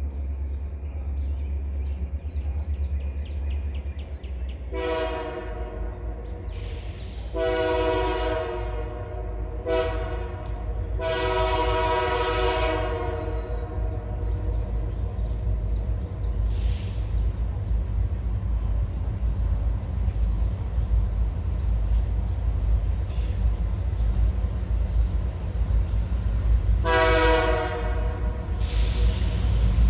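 Diesel locomotive horn of an RJ Corman coal train sounding the grade-crossing signal: two long blasts, a short one and a long one. A further long blast comes near the end. Under it is a steady low diesel rumble that slowly grows louder as the train comes on.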